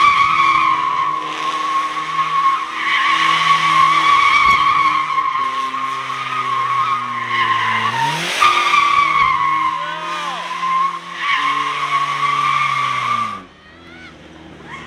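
Tires squealing long and steady while a car's engine revs high, its pitch sagging and then surging several times. The squeal and the engine both cut off abruptly near the end.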